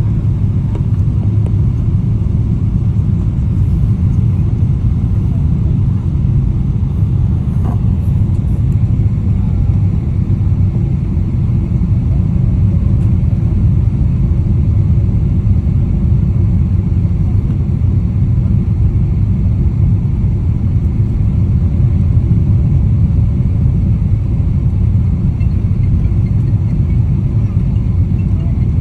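Steady, loud low rumble, even throughout, with no distinct events.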